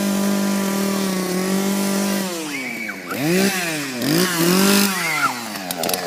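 Toy chainsaw's imitation engine noise: a steady buzz for about two seconds, then several quick revs swooping up and down in pitch.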